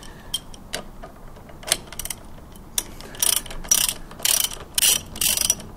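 Socket ratchet clicking as the brake calliper's mounting bolts are nipped up. A few scattered clicks come first, then from about three seconds in, five short bursts of rapid ratcheting about half a second apart.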